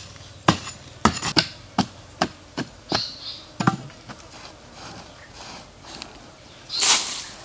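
A long hand-held digging pole is jabbed into hard, stony earth, about nine sharp strikes in the first four seconds. Softer scraping of soil follows, with a short hissing scrape near the end.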